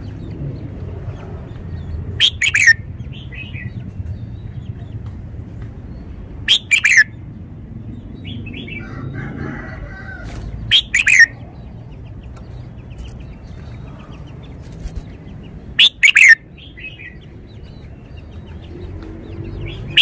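Caged red-whiskered bulbul singing: a loud short phrase about every four to five seconds, five times, each a quick run of notes sliding down in pitch, with softer twittering notes between the phrases.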